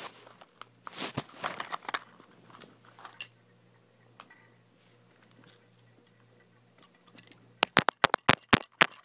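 Scraping and rustling from handling a cheap plastic toy RC car, then a quick burst of about eight sharp clicks near the end.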